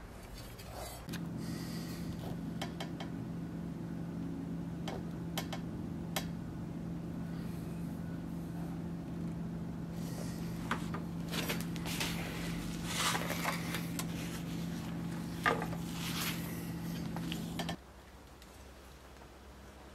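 A steady low hum with scattered light clicks and clinks, cutting off suddenly near the end.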